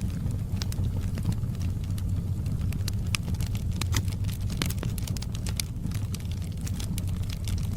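Wood fire crackling: many irregular sharp pops and snaps, several a second, over a steady low rumble of the burning fire.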